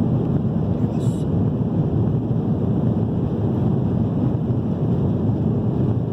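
Steady rumble and rush of an airliner's jet engines at high take-off power, heard inside the passenger cabin, with one brief click about a second in.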